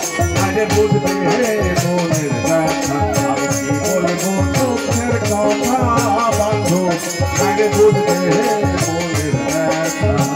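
Live Bengali folk song performance amplified through a PA: melodic lines with steady hand percussion and a jingling rattle, in a stretch without sung words.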